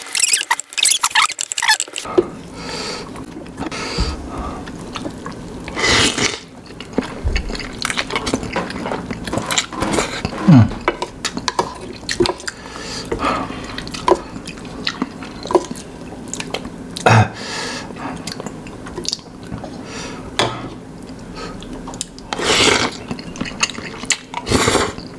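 Close-up eating sounds: instant noodles slurped in several hissing pulls, with wet mouth sounds and the clicks and scrapes of a wooden spoon and fork on a plate.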